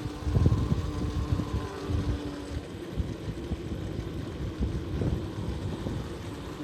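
A vehicle driving: an uneven low rumble of engine and road, with a steady hum for the first two or three seconds.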